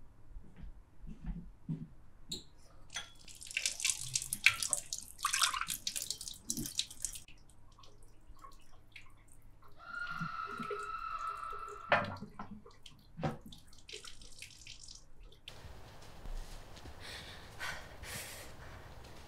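Water running from a kitchen tap into the sink in short spells, with clinks and knocks of dishes being washed and put down. A brief steady tone sounds about ten seconds in. After about fifteen seconds it gives way to an even, hissing outdoor ambience.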